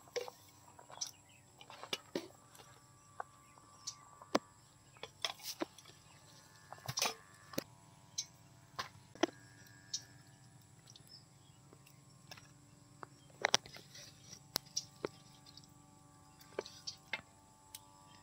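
Scattered faint clicks and soft taps of cooked rice being pressed by hand and chicken curry pieces set down on a banana leaf.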